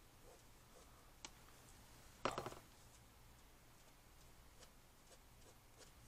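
Near silence with faint ticks of a white gel pen working on paper. A single click comes about a second in, and a short clatter of several quick clicks a little after two seconds is the loudest sound.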